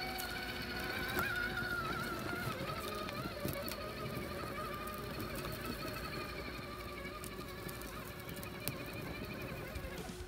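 Electric motor and gear drivetrain of an Axial SCX6 radio-controlled crawler whining steadily as it drives, the pitch wavering a little with the throttle.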